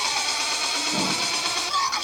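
Electronic dance music: a dense, noisy synth passage with a low hit about a second in.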